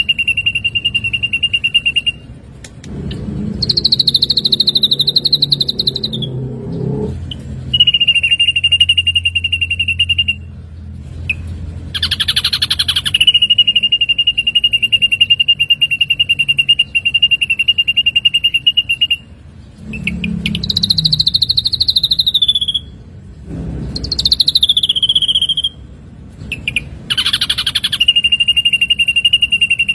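Ashy drongo singing: long steady high whistles held for several seconds, broken by short rapid buzzy trills and higher notes that fall away at their ends.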